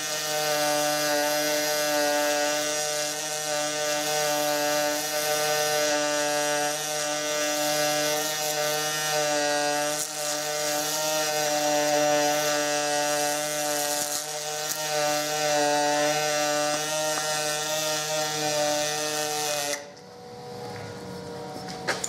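Pulsed MIG welding arc on aluminum, a steady pitched buzz with a hiss over it, from a synergic pulse MIG welder. It stops abruptly about 20 seconds in as the arc is broken.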